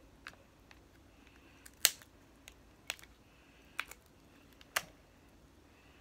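Snow crab leg shells cracking and snapping as they are broken apart by hand: about five sharp cracks, the loudest about two seconds in.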